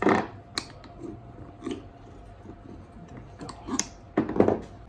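Steel motorcycle tire spoons levering a knobby scooter tire's bead over the rim: irregular clinks, taps and scrapes, loudest at the start and again near the end.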